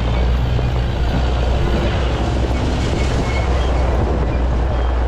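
A vehicle engine running steadily, a deep low drone mixed with rattling and rough running noise.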